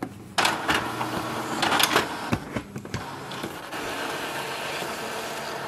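Epson EcoTank ET-2760 inkjet printer printing a nozzle-check page: the paper feed and print-head carriage start up suddenly about half a second in, with clicks and whirring, and settle into a steady whir near the end.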